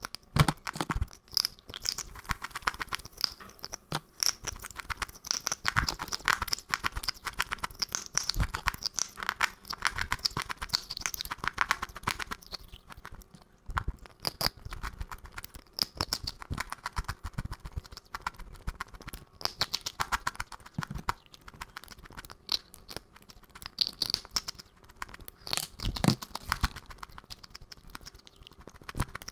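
Rapid crunching of crisp food being chewed close to the microphone: a dense run of crackles and crunches with short pauses between bites.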